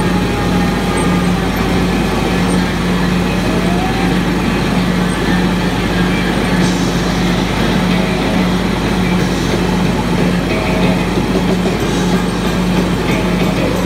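Riding lawn mower engine running steadily under load while mowing, a continuous low drone.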